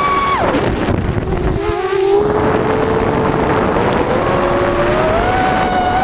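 Onboard audio of a 5-inch FPV freestyle quad's four EMAX RS2205 2600kv brushless motors whining. The pitch falls steeply about half a second in as the throttle is chopped, then rises slowly over the next few seconds as throttle comes back in. Wind rushes over the onboard microphone throughout.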